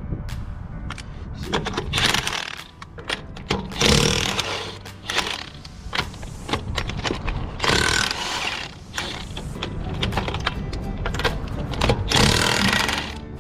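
Impact wrench run in four short bursts of about a second each, a few seconds apart, with clanks of metal tools and parts in between.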